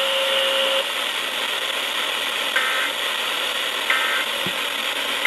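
Weather-radio broadcast hiss, with a steady tone that cuts off about a second in. Then come short warbling digital data bursts about 1.3 seconds apart: two of them, and a third starting at the very end. These are the SAME end-of-message codes that close an emergency alert.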